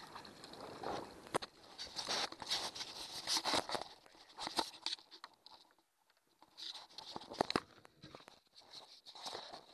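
A hooked shad splashing and thrashing at the surface beside the boat, mixed with irregular clicks, knocks and rustling of handling close to the microphone. It is busiest in the first half, eases off about halfway, then picks up again with scattered clicks.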